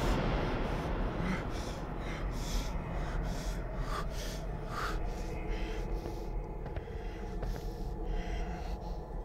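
A man panting: quick, regular breaths in and out, over a low steady hum.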